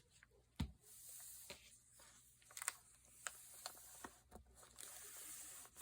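Faint handling sounds of paper crafting: scattered soft taps and light paper rustles, with a low thump about half a second in.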